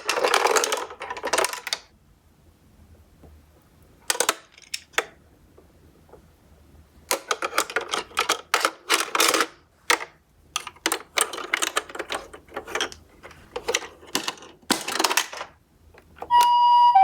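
Tomica die-cast toy cars clattering and rattling on a hard toy track, a racket of quick clicks: one burst at the start, two short ones a few seconds in, then a long stretch of rattling through most of the second half.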